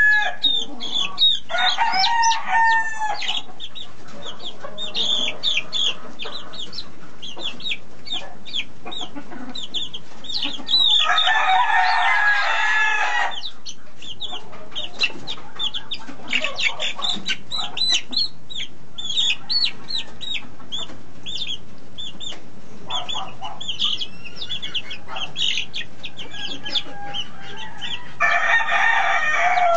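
Young chickens peeping in quick, high, falling chirps throughout, with a rooster crowing three times: near the start, about midway and near the end.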